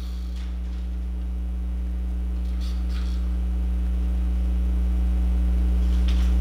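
Steady low electrical mains hum, growing slowly louder.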